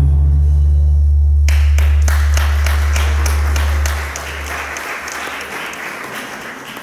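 A live band's last note rings out, a deep held bass note that fades away about four seconds in. Audience applause starts about a second and a half in and carries on, dying away near the end.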